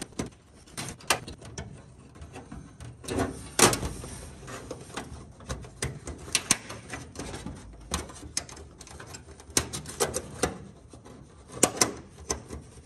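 Metal strap and static port fitting being pushed into place by hand against an aluminium fuselage skin. Irregular small clicks and taps of metal on metal, with the loudest knock about three and a half seconds in.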